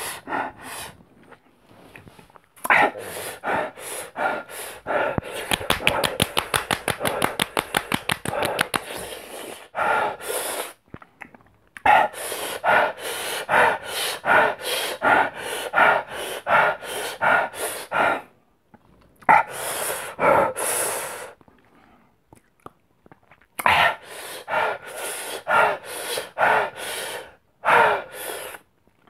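A man panting and hissing air in and out through clenched teeth in quick, repeated breaths, with short pauses, from the burning of the extremely hot One Chip Challenge chili chip. In the middle stretch the breaths come very fast, about ten a second.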